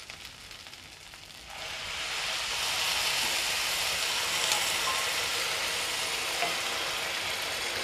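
Hot water poured into a hot pan of sautéed tomato rice, starting about a second and a half in and going on as a steady hiss.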